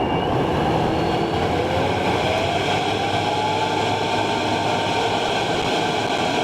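Steady road and engine noise of a Toyota Chaser's turbocharged 1JZ-GTE straight-six under way, with a faint tone rising slowly in pitch from about a second and a half to five seconds in. No sharp blow-off or flutter stands out.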